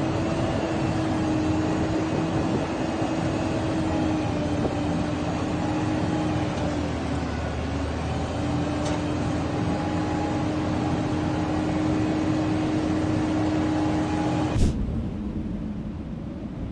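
A motorboat engine running steadily with a constant hum, dipping slightly in pitch now and then. It cuts off abruptly near the end, giving way to a quieter low rumble.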